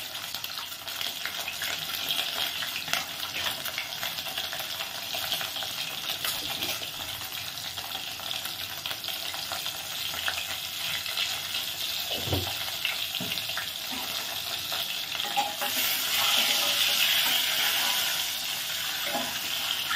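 Boiled duck eggs sizzling steadily in hot mustard oil in a pot, turned with a spatula; the sizzle grows louder near the end. A single soft knock a little past halfway.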